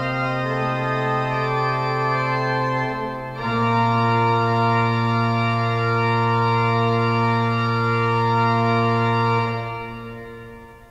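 Midmer-Losh pipe organ's Swell division playing on a mixture stop, held chords rich in high overtones. About three and a half seconds in it moves to a louder held chord, which is released about a second before the end, the sound dying away in the hall's reverberation.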